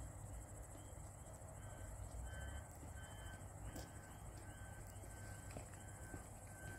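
Crickets chirping steadily, and from about two seconds in, faint evenly spaced electronic beeps, roughly three every two seconds, from a level-crossing warning signal.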